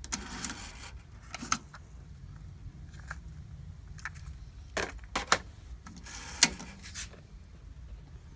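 Sony TC-188SD cassette deck's piano-key transport controls and cassette door clicking and clunking as the tape is ejected and the cassette is taken out. There is a scattered series of sharp clicks, the loudest about six and a half seconds in.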